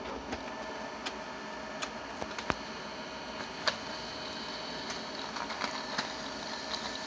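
HP LaserJet 5M laser printer running a print job: a steady mechanical whir with irregular clicks and ticks as the page is fed through.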